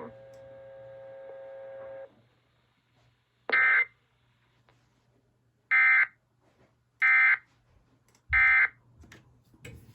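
Emergency Alert System end-of-message signal: four short digital data bursts, about a second or two apart, marking the end of the severe thunderstorm warning. A faint steady buzzing tone comes before them and stops about two seconds in.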